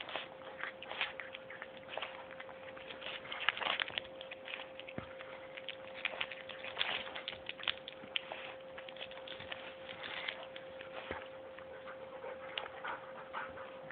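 Hairless cat chewing dry kibble, a dense, irregular crunching and clicking with no steady rhythm. A faint steady tone sits underneath.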